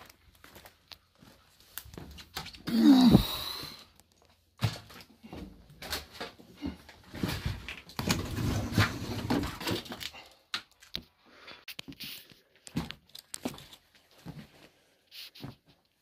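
Footsteps, knocks and scraping as someone climbs into an abandoned railway passenger coach and moves down its aisle, with one louder burst of noise about three seconds in and a longer stretch of scraping and rustling in the middle.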